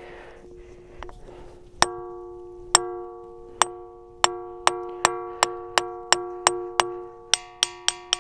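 A small hammer strikes a loose stone held on top of a ringing rock, and each hit gives a clear, bell-like ringing tone that carries on between strikes. The strikes begin about two seconds in, a few slow ones at first, then speed up to about three or four a second. The loose stone rings only because it sits on the ringing rock, which passes its musical property on to it.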